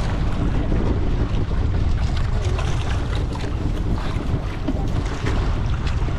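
Wind buffeting the microphone on a small boat at sea, over the steady rush of water.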